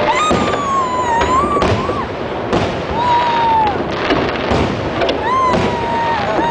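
Fireworks display: repeated booms and cracks of shells bursting over a constant rumble. A high wavering tone sounds over it three times.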